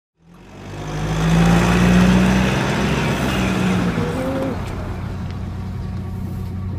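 Car engine and road noise heard from inside the cabin of a moving car, fading in over the first second. The engine note is strongest about two seconds in, then eases to a steady run.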